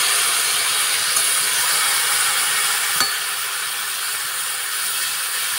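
Hot wok of yardlong beans sizzling with a steady hiss as a little water hits the hot pan, gradually getting quieter; a single light knock about three seconds in.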